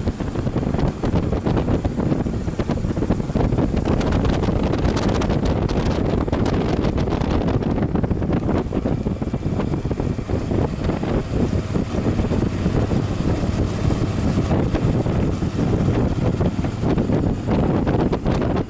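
Wind buffeting the microphone on a moving Suzuki V-Strom motorcycle, with the V-twin engine running underneath at a steady cruise.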